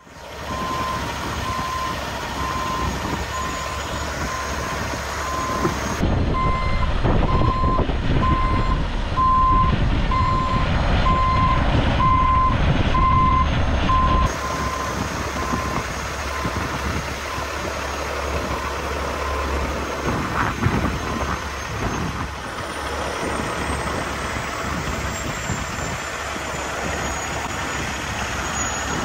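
A vehicle's reversing alarm beeping in a steady rhythm, about one and a half beeps a second, over a low rumble; the beeping stops about halfway through.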